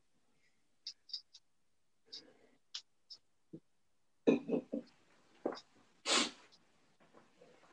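Scattered small clicks and knocks, with a quick run of louder knocks about four seconds in. A short, breathy, cough-like burst comes a little after six seconds.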